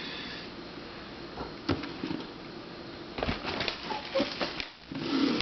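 Plastic twisty puzzles being handled and set down: a few light clicks and knocks, with a short cluster of them about three seconds in, and a brief low hum-like sound near the end.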